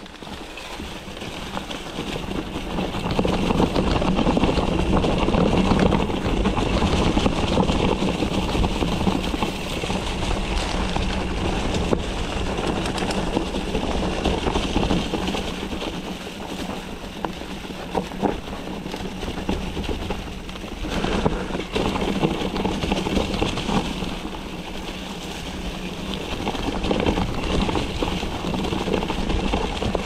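Mountain bike rolling fast down a dirt trail: continuous tyre and drivetrain noise with a steady hum, wind on the microphone and a few sharp knocks over rough ground. It grows louder over the first few seconds as speed builds, then holds.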